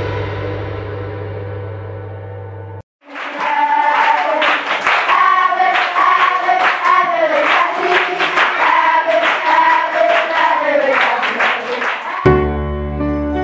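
A held musical chord fades out and breaks off, then voices sing over a steady percussive beat for about nine seconds. Near the end, sustained piano-like music comes in.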